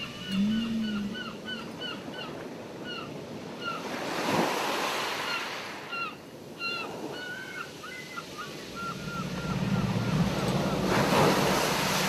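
Ocean surf washing in, swelling twice. Over it, gulls give a rapid series of short calls that die away about halfway through, and a low drone builds in the last few seconds.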